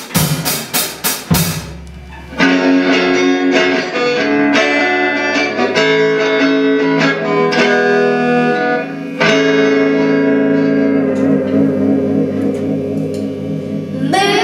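A children's rock band playing an instrumental passage: steady drum hits at about four a second open it, then from about two seconds in an electric guitar holds ringing chords that change every two seconds or so over lighter drumming.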